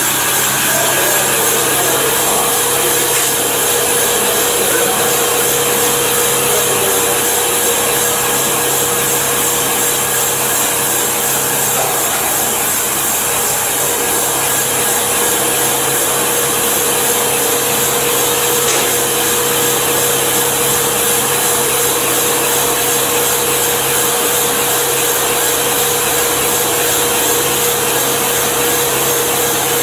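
HY1210 mini circular sock-knitting machine running, a loud steady mechanical whir with a constant hum, switching on abruptly at the start.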